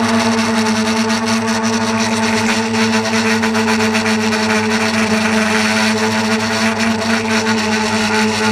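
A steady motor hum at a constant pitch, with wind buffeting the microphone.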